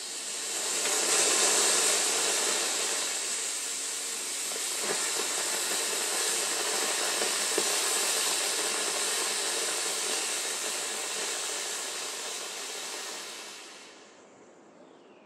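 Solid-propellant rocket motor firing in a static thrust test: a steady rushing hiss that builds over the first two seconds, holds with a couple of small pops, and dies away about fourteen seconds in as the burn ends.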